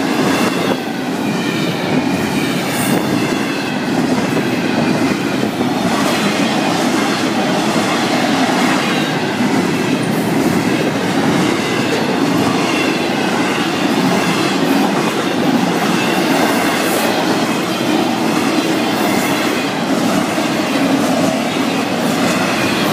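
Double-stack intermodal freight cars rolling past: steady noise of steel wheels running on the rails, with a faint high wavering whine in the first half.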